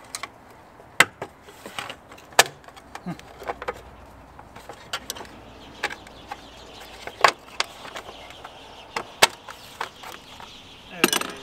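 Irregular sharp clicks and knocks of a screwdriver against plastic and metal parts while a car battery is fitted into its tray, with a quick cluster of rattling knocks near the end.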